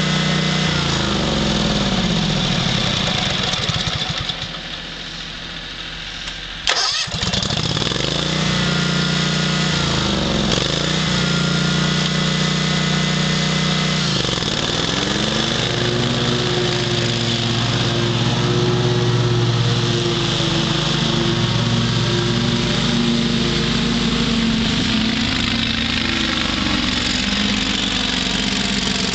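Great Dane Super Surfer 52-inch commercial mower engine running, then slowing down and dropping low. About seven seconds in there is a sharp click and the engine picks up again, changing speed a couple of times before it settles into steady running.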